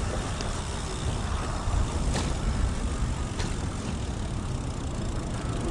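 Road traffic at an intersection: a steady low rumble of passing cars, with a few faint clicks.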